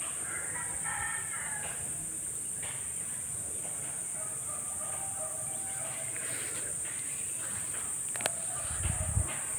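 Rooster crowing: a drawn-out call of about a second and a half near the start, with fainter fowl calls in the middle. A sharp click comes about eight seconds in, followed by a few low thumps near the end.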